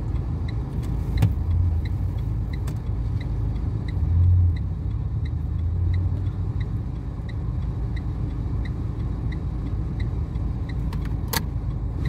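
Turn-signal indicator ticking steadily, about one and a half ticks a second, over the low hum of the car's engine heard inside the cabin. The engine swells briefly about four seconds in, and there is a sharp click near the end.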